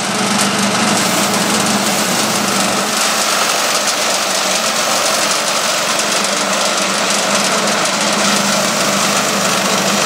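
Gas engine of a Central Machinery (Harbor Freight) band sawmill running steadily under load while its band blade rips a board off a squared timber.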